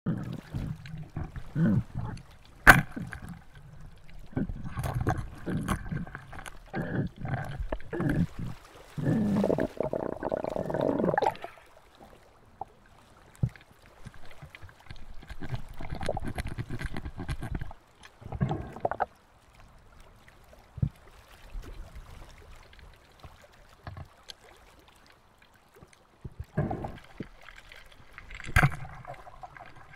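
Muffled underwater water noise picked up by a submerged camera, with gurgling and irregular knocks and scrapes, and a sharp click about three seconds in. It grows quieter after about twelve seconds, with only occasional bursts.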